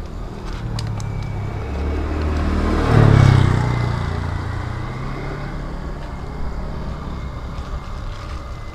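A motor vehicle driving past on the road: its engine noise grows louder, peaks about three seconds in, then fades away.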